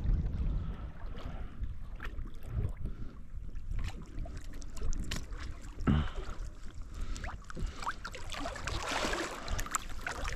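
Water lapping around a small canoe, with low wind rumble on the microphone and a few light clicks and knocks; a louder rush of splashing water comes near the end.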